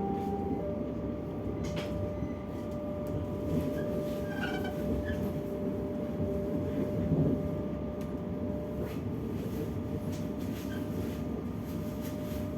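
DB Class 425 electric multiple unit running on the rails, heard from on board: a steady rolling rumble with a thin steady tone and a few scattered clicks and knocks.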